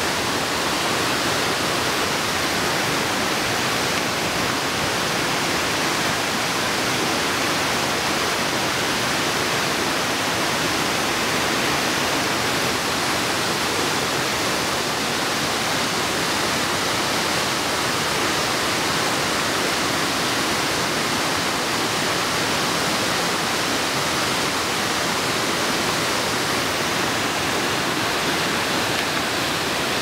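Tvinde waterfall cascading down stepped rock ledges: a steady, even rush of falling water that holds the same level throughout.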